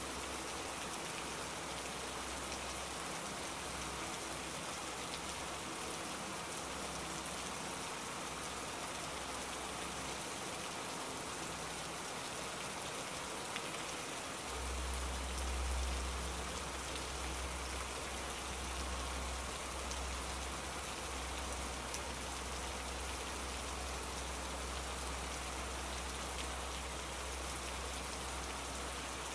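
Steady rain, an even hiss throughout; about halfway through a low rumble comes in beneath it and stays.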